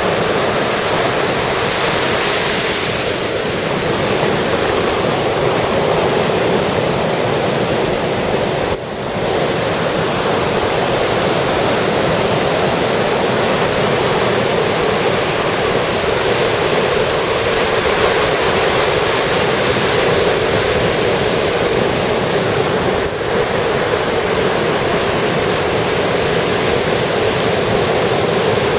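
Ocean surf breaking and washing in, a continuous rushing noise with brief dips about nine seconds in and again near the end.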